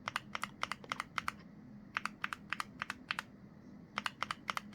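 Gateron Oil King linear switches on a modded Keychron Q1 mechanical keyboard clacking as the Q and W keys are pressed in quick runs of keystrokes with short pauses between. One of the two switches is lubed and the other is stock. The force-break, PE foam and painter's tape mods shape the keyboard's sound.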